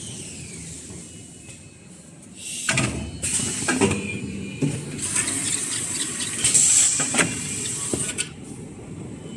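Automatic kitchen paper towel rewinding machine running: a quieter stretch, then from about three seconds in a louder spell of clattering knocks and high hissing that eases off near the end.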